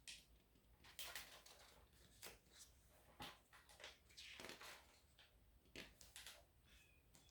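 Near silence with a handful of faint paper rustles and soft clicks, scattered through the pause: a picture book's pages being handled and turned.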